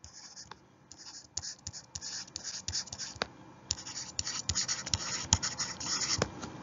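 A pen scratching in quick short strokes, with light taps, on a writing surface. The strokes come thicker and louder after the first second or so.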